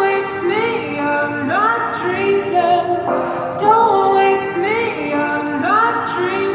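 Background music: a woman's voice singing a slow melody of long notes that slide up into pitch, phrase after phrase.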